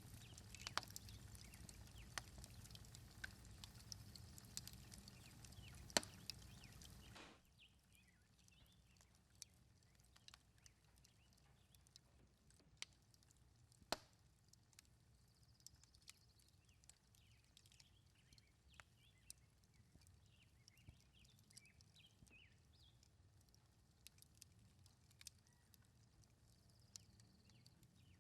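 Quiet outdoor sound with scattered light knocks and clicks and faint birdsong. A steady background hiss drops away suddenly about seven seconds in.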